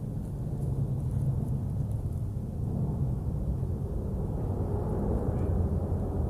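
Fighter jet passing overhead: a deep, steady rumbling roar that grows louder and fuller from about three seconds in.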